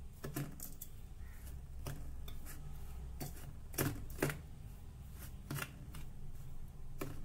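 Metal spoon stirring dry gram flour mixed with spices in a stainless steel bowl: irregular scraping and clicking of the spoon against the bowl, with two louder clinks about four seconds in.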